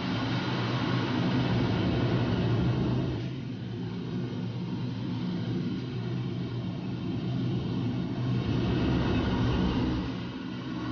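Aircraft engine and airflow drone heard from inside the cockpit: a steady low hum with rushing air. It swells and eases, dipping briefly about three and a half seconds in and again near the end.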